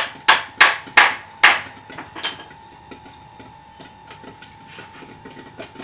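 Hammer blows on wood, about three a second, five loud strikes in the first second and a half, then one weaker blow and only light taps. A steady hum runs underneath.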